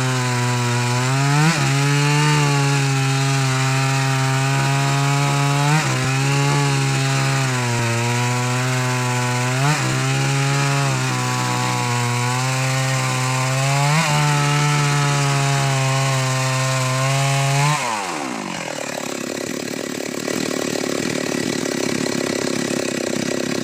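Chainsaw cutting into wood, its engine pitch sagging under load and picking up again every few seconds. About 18 seconds in, the engine winds down and stops, and a steady rushing noise follows.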